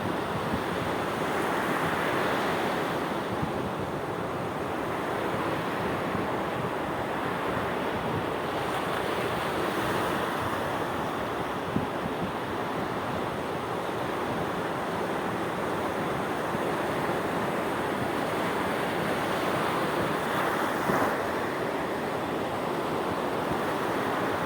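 Sea waves washing onto the shore in a continuous surf, swelling and easing, with stronger swells about two seconds in and near the end. Wind buffets the microphone now and then.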